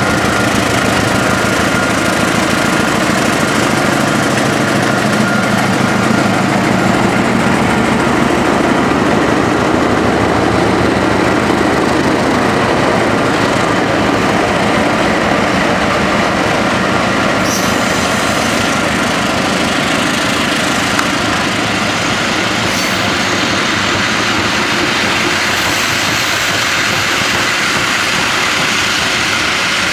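Three GE CC206 (CM20EMP) diesel-electric locomotives in triple traction passing at close range with their engines running loud and steady. The engine sound gives way to the rolling noise of the passenger coaches' wheels on the rails as the train goes by.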